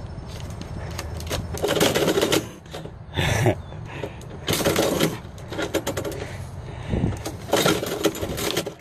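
Metal door mail-slot flap clacking and rattling in several short bursts, with envelopes scraping through it, as mail is pushed in and a cat pushes it back out.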